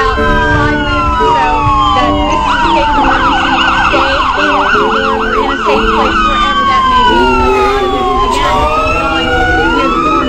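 Several emergency vehicle sirens sounding at once, loud and overlapping: slow wails that rise and fall, with a fast yelp of about four cycles a second from about two and a half seconds in to about five seconds in.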